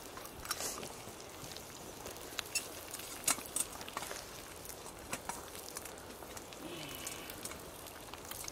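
Bacon frying in a pan: a steady sizzle with irregular sharp pops.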